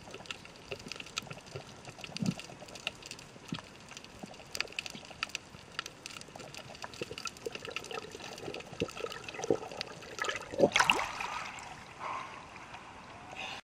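Water heard through an underwater camera: a steady wash dotted with scattered sharp clicks and crackles. About eleven seconds in, a louder splashing rush comes as the camera breaks the sea surface, and the sound cuts off abruptly just before the end.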